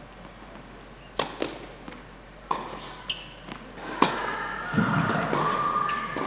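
Tennis ball hit by rackets and bouncing on an indoor court during a rally: sharp pops spaced about half a second to a second apart.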